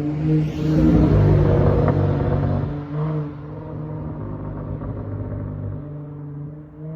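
Dodge Charger SXT's V6 running through a Flowmaster Outlaw exhaust at slow street speed. It swells in a burst of throttle about half a second in, stays loudest for a couple of seconds, then eases back to a steady low drone.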